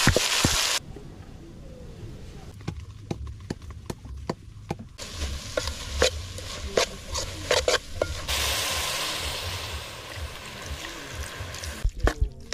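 A metal spoon stirring fingerlings (omena) and tomatoes frying in an aluminium pot: repeated sharp clicks and scrapes of the spoon on the pot over a sizzling hiss that starts and stops abruptly. It opens with under a second of loud rushing hiss.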